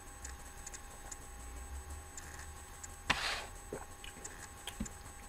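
Drink can opened: a sharp pop of the pull tab about three seconds in, followed by a short hiss, then a couple of faint clicks.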